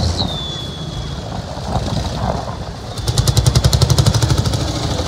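Tractor engines passing close by. A Massey Ferguson 135 runs steadily at first. From about three seconds in, a louder, fast, even pulsing beat takes over, roughly ten beats a second, from a green vintage tractor with a tall exhaust stack.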